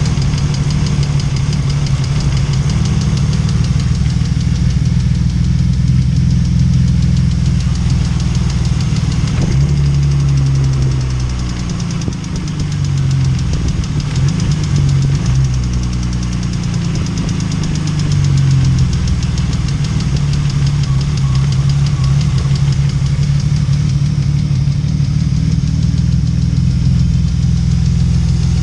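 BMW M50B25 2.5-litre straight-six running at idle with a rapid, even ticking knock from its hydraulic lifters (lash adjusters). The engine speed dips and wavers for several seconds around the middle, then settles again.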